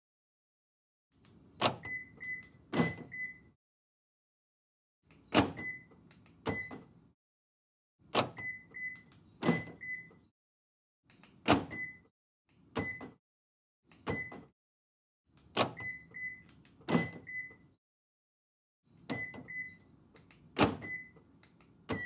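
Lexus ES power door locks being locked and unlocked from the key fob, over and over. Each time there are sharp clunks from the lock actuators and one to three short, high beeps, with a new round every two to four seconds.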